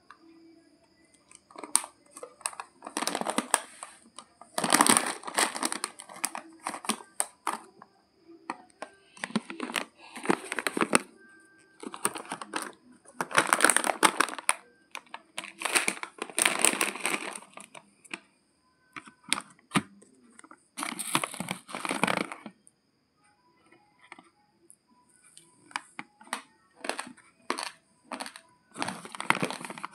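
Plastic bag of basmati rice crinkling and rustling as it is handled and opened, in repeated bursts of a second or two with short pauses between.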